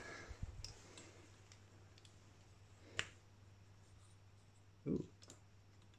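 A single sharp click about halfway through, over faint handling noise and a low steady hum, as the power bank and the soldered LED's plug are handled.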